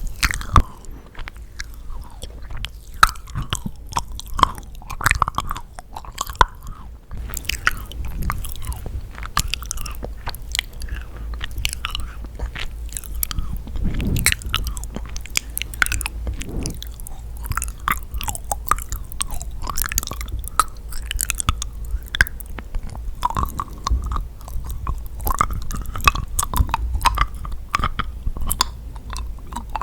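Close-miked chewing of yakgwa, a sticky honey-soaked Korean fried cookie: continuous wet, sticky mouth clicks and smacks with occasional bites.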